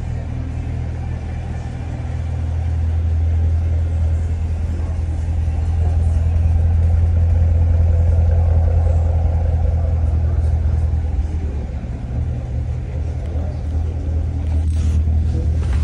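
2016 Chevrolet Corvette Stingray's 6.2-litre LT1 V8 idling with a steady low exhaust hum, louder for several seconds in the middle. A brief knock sounds near the end.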